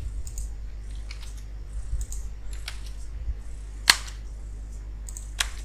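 Computer keyboard keys clicking in scattered keystrokes as digits are typed, one sharper click about four seconds in, over a steady low electrical hum.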